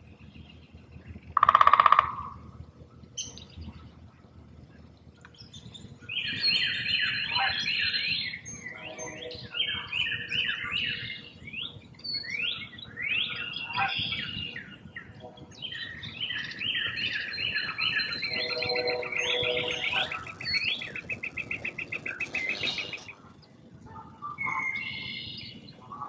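Wild birds calling: one loud goose-like honk about two seconds in, then from about six seconds a dense chorus of chirps, trills and rapid repeated calls. The birds named for this stretch are Canada goose, red-winged blackbird, northern flicker, northern cardinal and tufted titmouse.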